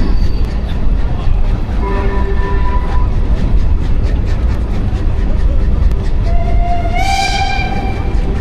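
Steam train running with a steady rumble and faint rail clicks. A brief high tone sounds about two seconds in. Near the end the steam locomotive's whistle blows, rising in pitch and held for about a second.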